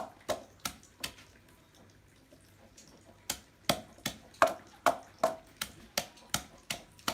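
Pestle pounding herbs in a mortar: a few quick strikes, a pause of about two seconds, then steady pounding at about two and a half strikes a second.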